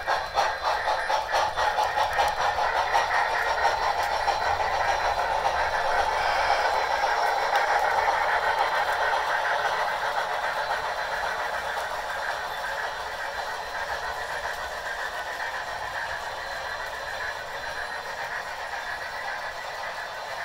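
Several HO-scale model steam locomotives running together, their DCC sound decoders playing steam chuffing through small onboard speakers over the clicking and rattle of wheels on sectional track. The sound grows gradually quieter in the second half as the trains pull away.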